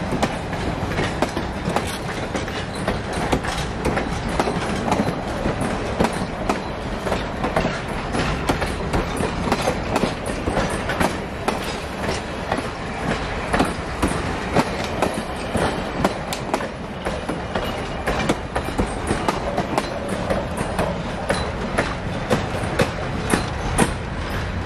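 A passenger train rolling along with a steady rumble. Its steel wheels click and knock irregularly over the rail joints the whole time.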